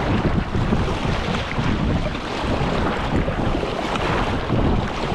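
River water rushing and splashing around a paddled inflatable raft, with wind buffeting the microphone in a steady, uneven low rumble.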